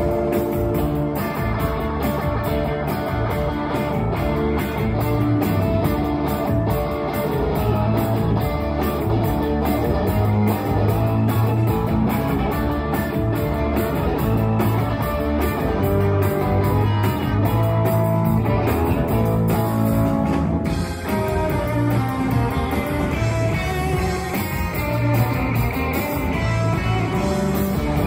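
Live rock band playing loudly: electric guitar, electric bass and drum kit, amplified through the PA.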